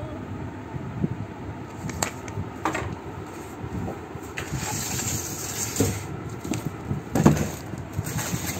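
Cardboard carton and paper being handled: scattered rustles and a few short knocks, the loudest about seven seconds in, over a steady low background noise.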